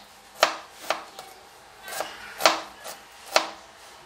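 Kitchen knife chopping onion on a cutting board: sharp, unevenly spaced strikes about one a second.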